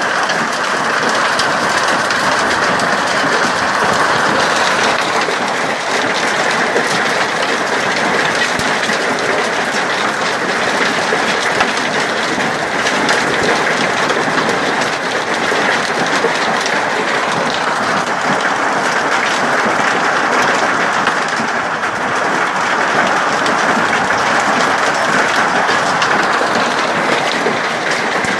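Large hailstones pelting the ground, deck and garden in a loud, dense, unbroken clatter of countless small impacts.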